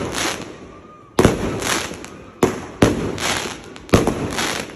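Fireworks going off close by: four sharp bangs, each followed by about a second of fading crackle as the burst's sparks pop.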